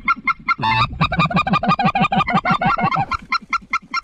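Geese calling: a fast, steady run of short honks, several a second, loudest in the first three seconds.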